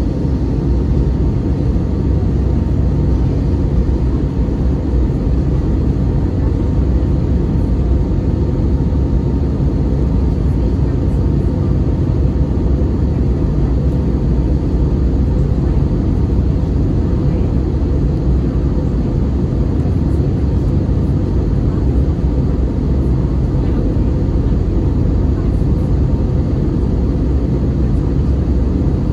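Steady in-flight drone inside the cabin of an Airbus A320neo, the deep rumble of its Pratt & Whitney PW1100G geared turbofan engines and the rushing airflow heard from a window seat by the wing, with a faint steady whine above it.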